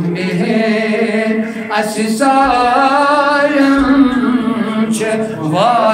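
A man's voice singing a devotional naat in Kashmiri, unaccompanied, with long drawn-out wavering notes and a rising glide near the end.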